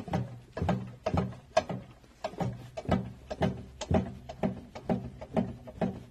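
GAB-1-0/230 generator set's 2SD-M engine running, with a regular knock about twice a second over its steady hum. The knock is the sign of a torn coupling, though the owner thinks it sounds more like it comes from the connecting rod below.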